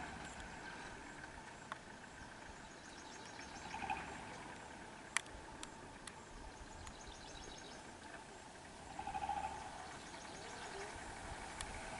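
Faint outdoor ambience of birds calling now and then and insects trilling, with a single sharp click about five seconds in.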